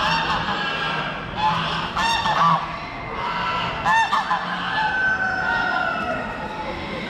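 Domestic geese honking: bunches of repeated calls about two seconds in and again around four seconds in, over a steady background din of the show hall.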